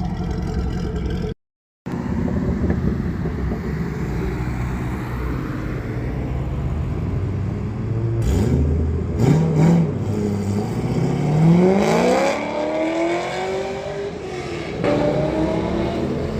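2005 Corvette C6's 6.0 L LS2 V8 running through long-tube headers, X-pipe and Corsa Extreme mufflers, revving up several times with the pitch climbing, most strongly about eleven seconds in.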